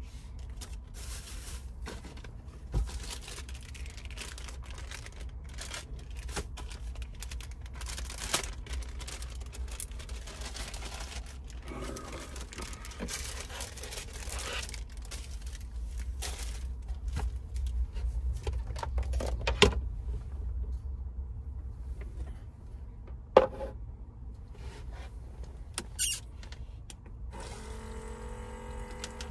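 Scattered knocks and clicks of things being handled, with stretches of rustling, over a low steady rumble. Two sharp knocks stand out, about twenty and twenty-three seconds in. A short pitched sound comes near the end.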